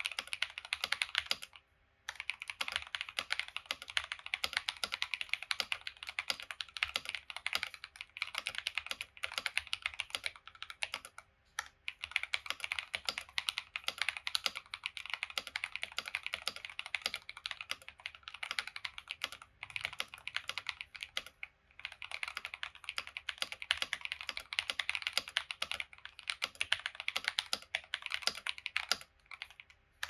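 Fast, steady typing on a VN66 (MK66 Pro) mechanical keyboard fitted with KTT Red Wine linear switches lubed with Krytox 205g0, with PE-foam and foam mods and lubed stabilisers: a dense run of keystrokes, broken by short pauses a few times.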